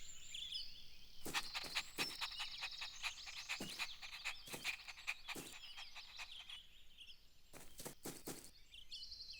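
Faint outdoor birdsong ambience of high, quick chirps and trills, with scattered light clicks.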